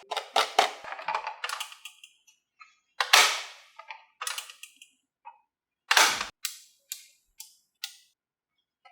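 Marbles clacking and dropping through a wooden HABA marble run: a quick clatter of sharp clicks over the first two seconds, then single clacks spaced out, the loudest about three and six seconds in.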